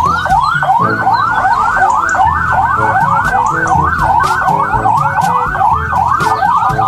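Police siren wailing in quick rising sweeps, about three a second, turning faster near the end.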